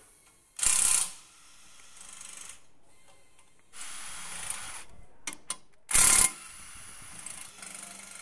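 Cordless impact wrench driving bolts into the aluminium crankcase of a Mercedes-AMG M139 four-cylinder engine: two short loud bursts, the first about half a second in and the second about six seconds in, with quieter spells of the tool running between and after them.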